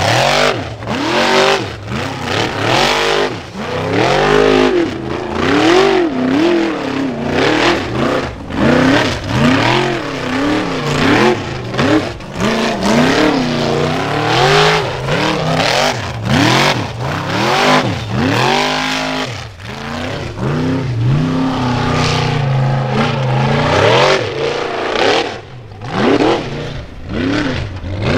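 A Formula Offroad buggy's engine revving hard in repeated rises and falls, about one every second or two, as its wheels spin on loose gravel and dirt.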